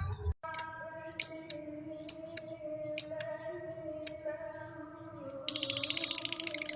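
Lovebird calling: scattered single sharp chirps for about five seconds, then a fast, continuous chattering trill (the 'ngekek' or 'kekekan' song) that starts near the end.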